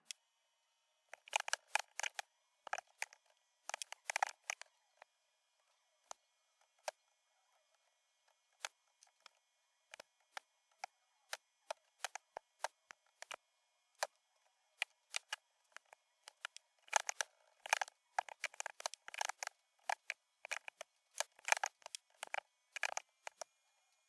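Typing on a computer keyboard: quick runs of key clicks with pauses between, sparse in the middle and densest in the last third.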